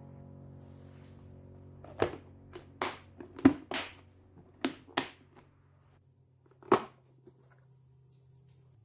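Plastic storage-container lid being put on and pressed shut over a pickling tub: a run of about seven sharp plastic clicks and knocks over some five seconds, the loudest about three and a half seconds in.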